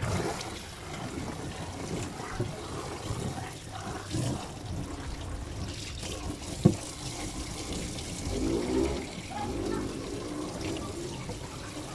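Water running from a tap and splashing onto a screen-printing screen, washing out the unexposed photo emulsion to bring out the design. About two-thirds of the way through there is a single sharp knock.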